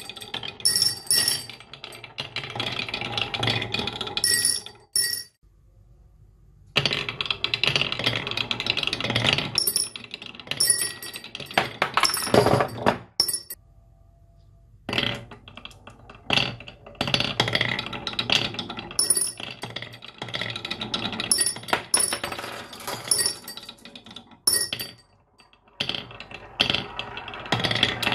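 Marbles rolling and clacking down a marble run track: a steady rattle with many sharp clicks and clinks as they strike the track and each other. The rattle stops twice, briefly, about five and about thirteen seconds in, then starts again.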